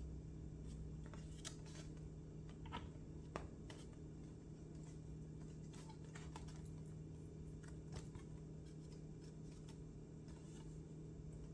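Faint rustling and scattered light clicks of packaging and foam-packed parts being handled, over a steady low hum.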